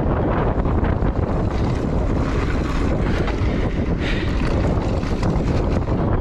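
Wind buffeting the microphone of a mountain biker's camera on a fast descent, a steady low rumble, with the tyres rattling and crunching over a dirt trail.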